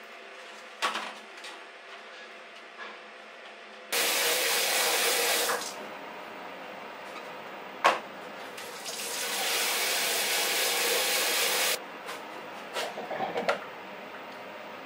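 Kitchen tap running into a stainless steel sink twice, first for about a second and a half, then for about three seconds, as the fish and beef are rinsed. A sharp knock comes between the two runs, and a few light clatters come near the end.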